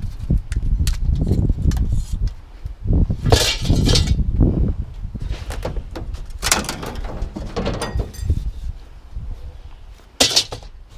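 Aluminium window frames being handled and pulled apart: repeated metal knocks, clatters and scraping, with several longer rattling, scraping passes. Wind buffets the microphone throughout.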